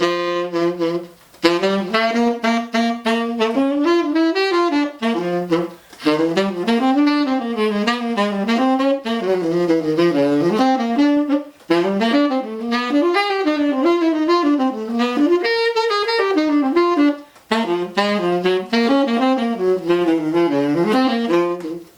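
Saxophone played solo on a soft 1.5-strength Rico reed, running up and down through melodic jazz phrases across the horn's range, with short breaths between phrases. The tone is nice and buzzy and full through the whole range, but the player finds the reed too soft, missing the core he wants.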